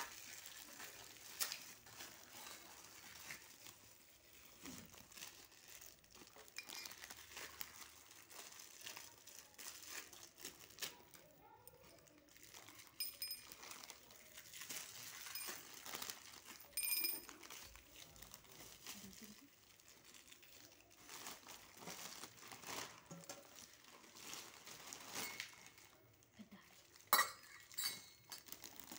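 Clear plastic wrapping and bubble wrap crinkling and crackling as it is handled and pulled off silverware, with a few light clinks of German silver vessels, two of which ring briefly around the middle.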